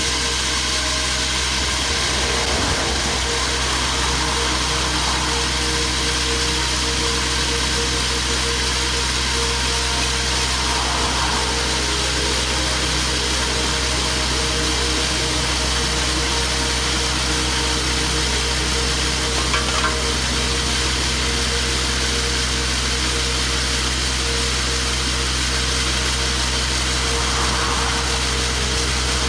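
Xcalibre T5 coring rig's diesel engine and hydraulic drive running steadily as a water-flushed 300 mm core barrel cuts down into the asphalt road. A passing vehicle swells over it near the end.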